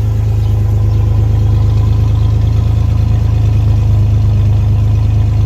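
The GMC S15's 2.8-litre engine running steadily and loud, with no change in speed.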